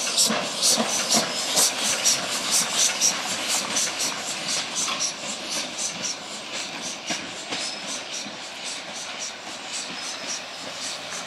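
Oil-fired 4-4-0 steam locomotive York (No. 17) chuffing steadily at low speed, about three exhaust beats a second, each with a hiss of steam, the beats slowly growing fainter.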